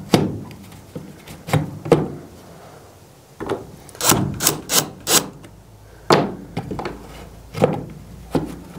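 Knocks and clunks on a wooden stud wall as a plastic fence energizer is held against it and fastened with a cordless drill. There is a quick run of about five sharp clicks in the middle.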